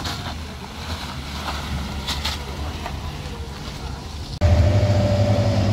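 Heavy vehicle engine running steadily with road and wind noise. About four seconds in, a louder, steady engine drone starts abruptly.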